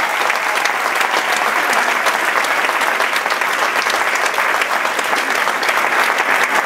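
An audience applauding, a dense steady clatter of many hands clapping.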